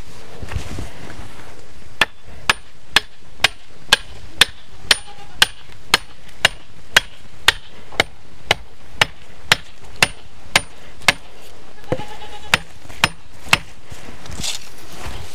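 Repeated sharp blows of a hand tool on a hard surface, about two a second in a steady rhythm, starting about two seconds in and running for about ten seconds with a short pause near the end.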